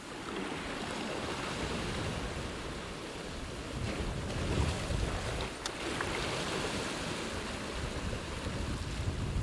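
Sea waves surging and washing over a rocky shore platform, with wind gusting on the microphone. The surf swells about half a second in and again around four to five seconds in.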